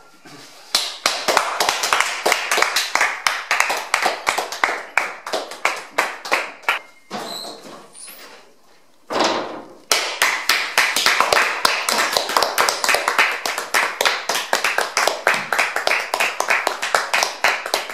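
Several people clapping their hands in a fast, even rhythm. The clapping stops for a few seconds partway through, then starts again.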